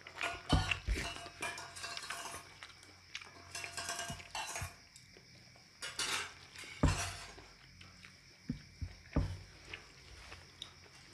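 Plate and utensils clinking and scraping during a meal, with several sharp knocks spread through and short scraping sounds between them.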